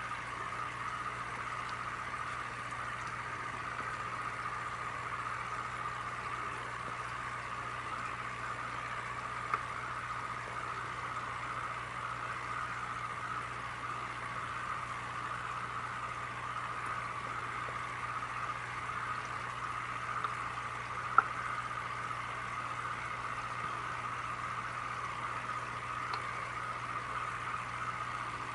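Steady bubbling of aquarium water, with a constant low hum from the tank's pump, and two small clicks about ten and twenty-one seconds in.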